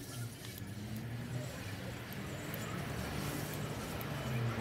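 A steady low mechanical hum, growing slightly louder, over a background of passing street traffic.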